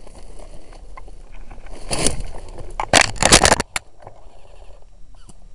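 Footsteps pushing through dry undergrowth, with twigs and brush crackling and snapping and the camera being jostled. A rush of brush noise comes about two seconds in, then a loud run of cracks and rustles a second later.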